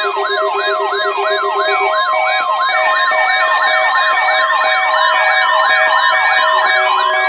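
A stack of overlapping electronic alert tones from a weather radio warning-alarm test. Fast rising-and-falling siren sweeps repeat about three times a second over steady and chopped beeps. A low pulsing beep drops out about two seconds in.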